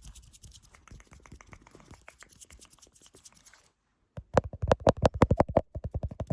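Close-miked ASMR hand sounds: soft scratchy rubbing of skin at first, then, after a brief silent gap, a run of loud, rapid rubbing strokes, about eight a second.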